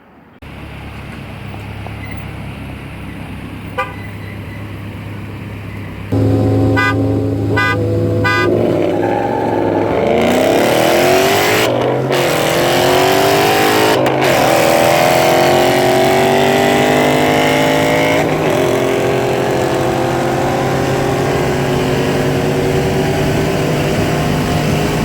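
Street-race start: V8 engines rev at the line while a car horn gives a quick series of honks as the countdown. The cars then launch and pull at full throttle, the engine note climbing steeply through the gears with shifts about 12, 14 and 18 seconds in.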